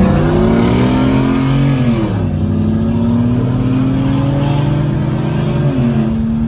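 Car engine pulling hard under acceleration, its pitch climbing slowly and then dropping at an upshift about two seconds in, climbing again and dropping at a second shift near the end.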